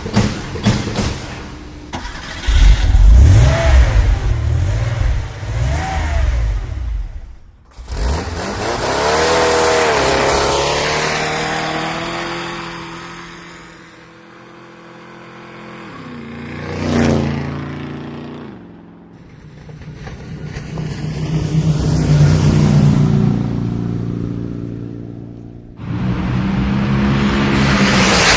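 A series of vehicle engine sounds joined by abrupt cuts. Engines rev and swell louder, then fade away as if passing by, with a drop in pitch near the middle. Heavy low pounding comes early on.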